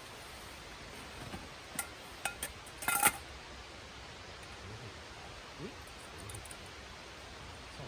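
Cookware clinking: a handful of light knocks with a short ring, the loudest cluster about three seconds in, over a steady hiss.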